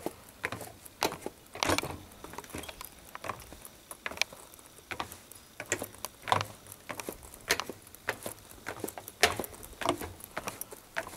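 Footsteps at walking pace, a sharp knock about every two-thirds of a second, some with a dull low thud.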